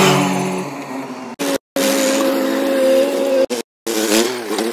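Diesel engines of a JCB 3DX backhoe loader and a Sonalika DI 42 RX tractor running, in short clips joined by abrupt cuts with brief gaps of silence. The engine note falls in the first second, holds steady in the middle, and wavers up and down near the end.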